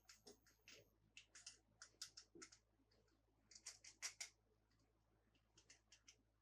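Quiet handling of small toys and their packaging: a run of light, irregular clicks, taps and crinkles, with a short lull a little past the middle.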